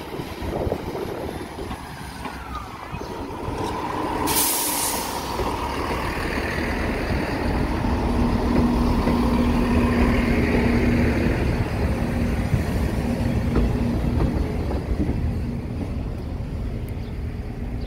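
Transport for Wales Class 158 diesel multiple unit passing close by over a level crossing. Its engine rumble and wheels on the rails build up, with a steady hum in the middle of the pass, then ease off near the end. A short, loud hiss comes about four seconds in.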